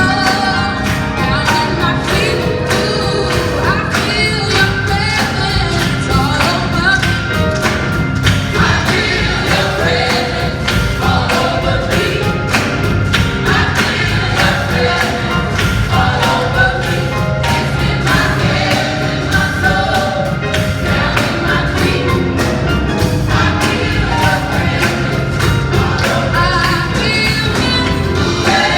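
Gospel choir singing in full voice, with a steady beat underneath.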